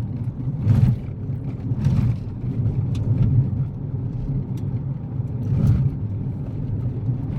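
Kia Picanto driving on a gravel road: a steady low rumble of engine and tyres, with scattered small knocks of gravel.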